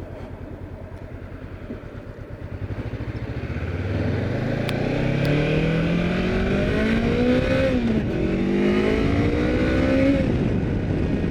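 Honda motorcycle engine idling with a low pulse, then pulling away and accelerating in rising pitch, shifting up with a sudden drop in pitch about eight seconds in, accelerating again and easing off near the end. Heard through a clip-on mic inside the rider's helmet.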